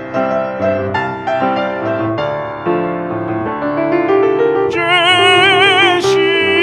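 Piano playing an instrumental interlude of a song. About five seconds in, a held melody note with wide vibrato comes in over the piano and the music gets louder.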